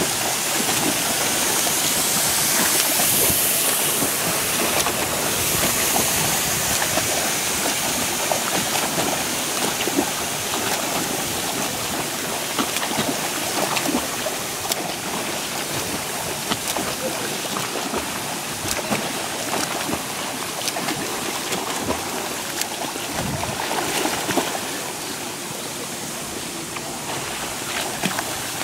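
Water splashing and churning from a swimmer doing front crawl, his arm strokes and kicking feet breaking the surface in a steady wash of small splashes.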